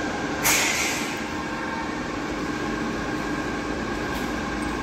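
Steady drone of running factory machinery, a low rumble with several constant tones over it, and a brief hiss about half a second in.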